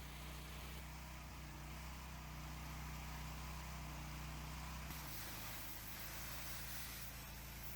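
Gas pressure washer engine running steadily. About five seconds in its note changes and a higher hiss grows louder.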